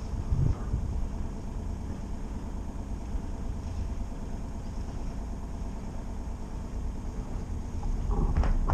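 Sailing yacht's engine idling with a steady low rumble, wind buffeting the microphone. A short clatter near the end.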